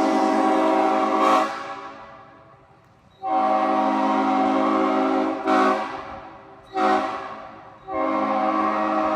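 Old-cast Nathan Airchime P01235 five-chime air horn sounding its chord in long, long, short, long blasts, the pattern of a grade-crossing signal. Each blast fades out slowly after it stops.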